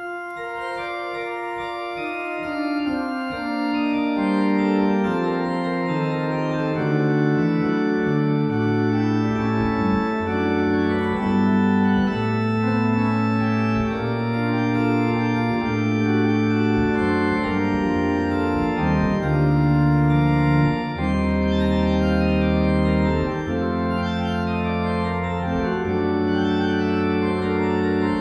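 Organ postlude: the organ plays sustained, slowly changing chords, growing fuller over the first few seconds, with deep bass notes joining about eight seconds in.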